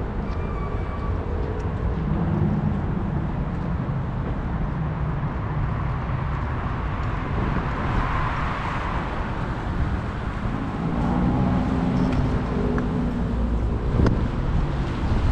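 Cars passing on the road, engine hum and tyre noise swelling and fading over a steady traffic wash, with a single sharp knock near the end.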